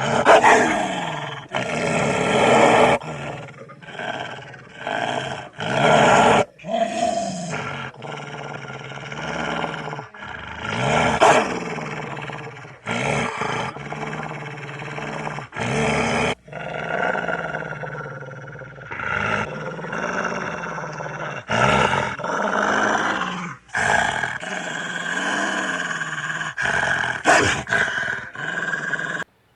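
An animal growling and roaring, in a string of short clips that start and stop abruptly.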